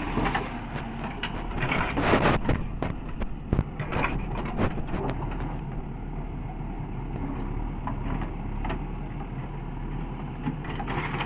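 Diesel engine of a JCB backhoe loader running as the backhoe digs. Several sharp knocks come in the first five seconds, after which the engine sound is steadier.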